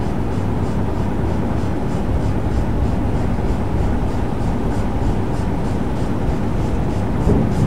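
Steady low rumble of a single-screw harbour tug's diesel engine running under way, heard from on deck, with a brief knock near the end.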